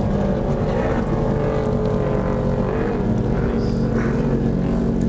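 Motorboat engines running steadily: a continuous low drone at an even pitch, from racing speed skiffs and the boat on the water.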